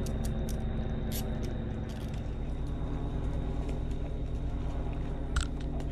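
A vehicle engine idling steadily, with scattered light clicks and one sharper knock near the end.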